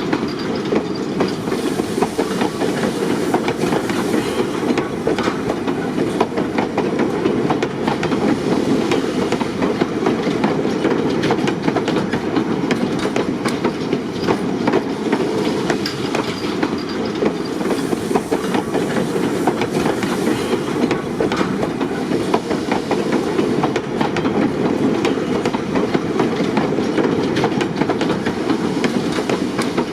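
Train wheels rolling steadily along the track: a continuous rumble with fine clicks and rattles from wheels on rail.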